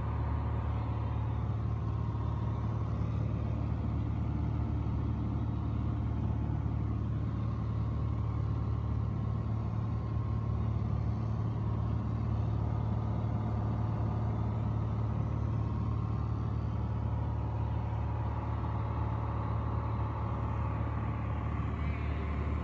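Piper Dakota's six-cylinder Lycoming O-540 engine and propeller droning steadily in flight, heard inside the cabin.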